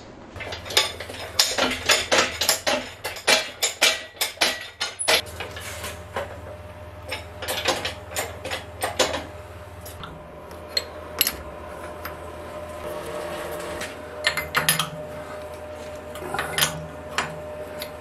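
Metal tools and parts clinking and clanking against a steel milling machine: a run of sharp clicks and knocks, dense in the first few seconds and sparser after, over a low steady hum.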